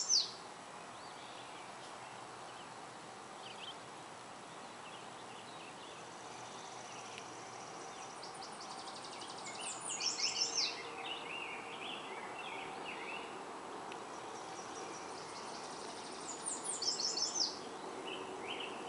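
A songbird repeats a short, high, rapid trill that steps down in pitch: one is ending right at the start, another comes about ten seconds in, and a third near the end. Other birds chirp faintly, over a steady hum of distant traffic.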